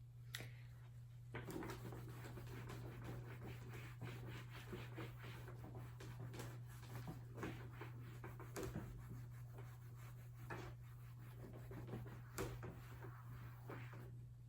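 Faint hand-writing: a pen or marker scratching out words in short strokes, starting about a second in, over a steady low hum.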